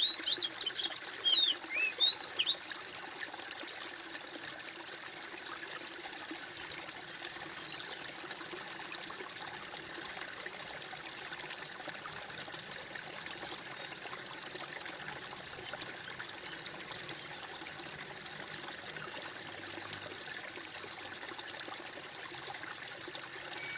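Water trickling and gurgling steadily. A bird chirps rapidly several times in the first two seconds or so.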